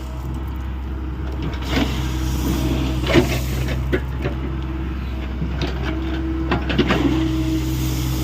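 Hyundai 85A excavator's diesel engine running steadily under working load, with irregular sharp knocks and clanks from the machine at work in earth.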